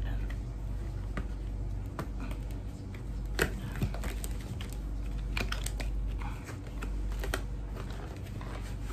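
Scattered clicks, taps and rustles of a cardboard retail box being opened by hand: its seal broken, a paper insert pulled out and the inner package slid free. The sharpest click comes about three and a half seconds in, over a steady low hum.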